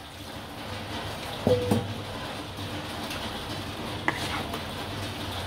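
Water poured into a hot wok of spiced chicken and potatoes, with a steady hiss as it meets the pan. There is a short knock about a second and a half in and a faint click near the end.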